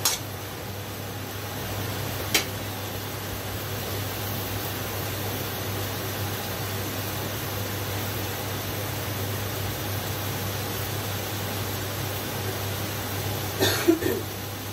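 Steady hiss with a low hum underneath, broken by a sharp clack of a metal spatula against the wok at the start, another about two seconds later, and a short cluster of knocks near the end.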